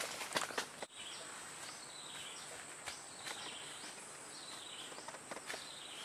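Footsteps crunching and rustling through forest undergrowth for about the first second. Then steady rainforest ambience: a constant high insect drone with repeated short chirping calls.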